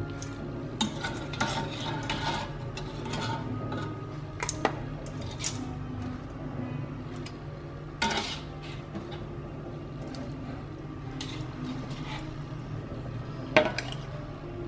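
Metal tongs clinking and scraping against a metal wok as pieces of braised chicken are lifted out, with scattered knocks over a steady low hum; the sharpest clank comes near the end.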